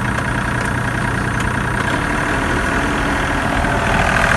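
Isuzu 3KR2 three-cylinder diesel in an IHI 35GX-3 mini excavator, running steadily with the throttle raised a little off idle and getting slightly louder near the end. The seller calls it extremely smooth and solid, with no blow-by at all, and takes this as the sign of a healthy engine.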